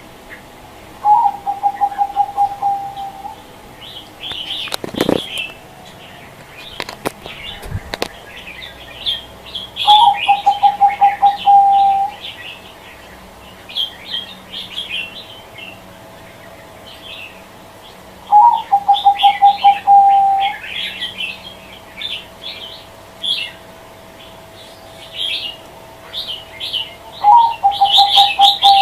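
Zebra dove (perkutut) cooing: four quick stuttering phrases of rapid coos, about every nine seconds. High-pitched chirping from small birds goes on between them.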